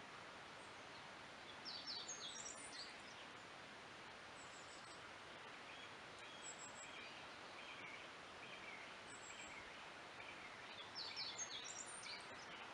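Forest ambience: a soft steady hiss with songbirds singing, two bursts of quick high twittering phrases about two seconds in and again near the end, and scattered chirps between.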